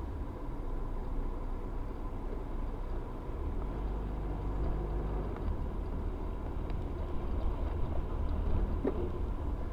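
Steady low rumble of engine and road noise inside a moving car, as picked up by a dashcam microphone.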